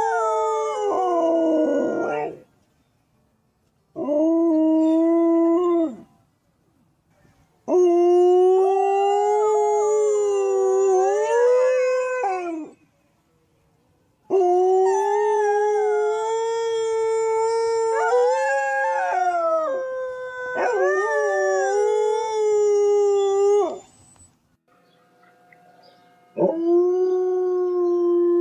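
Dog howling: long drawn-out howls, about six in a row with short pauses between them, each holding a steady, slightly wavering pitch before trailing off.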